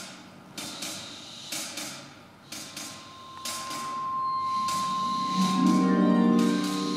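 Free improvised chamber music: a high steady tone held throughout, scattered sharp clicks and knocks, and a low sustained note entering about five and a half seconds in and swelling to the loudest point.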